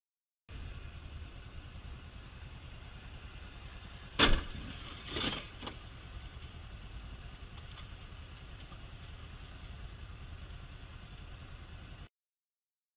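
Vehicle engine and road rumble recorded from on board, with a loud sharp bang about four seconds in and a smaller knock about a second later, the sound of a collision.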